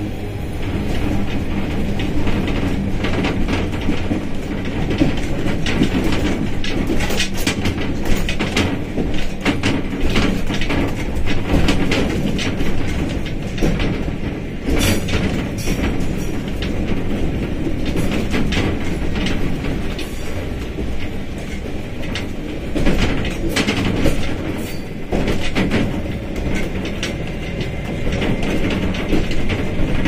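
Train running along the track: a steady rumble with many irregular clacks from the wheels over the rails and turnouts.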